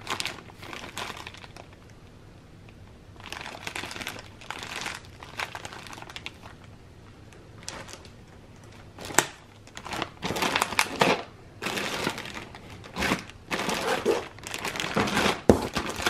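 Clear plastic bags crinkling and rustling in uneven bursts as packets of kit items are handled and shuffled about in a cardboard box. The rustling gets busier about halfway through, with a couple of sharp knocks.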